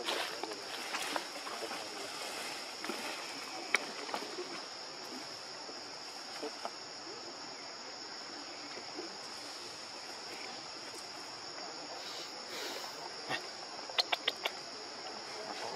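Steady high-pitched drone of insects, with a few sharp clicks and a quick run of clicks near the end.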